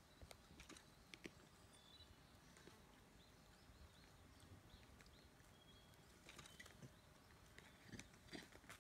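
Near silence with faint high chirps in the background and a few soft clicks and knocks, the louder ones near the end, from sika deer hooves shifting on an asphalt road.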